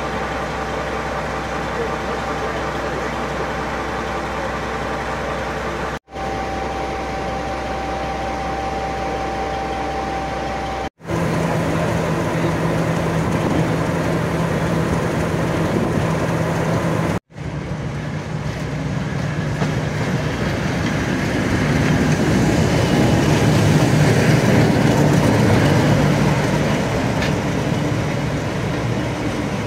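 Heritage diesel locomotive engines running at station platforms, in several clips cut together: a Class 42 Warship's diesel engines idling, then a Class 37's English Electric V12 ticking over with a steady low hum. In the last clip the engine noise swells louder for several seconds before easing a little.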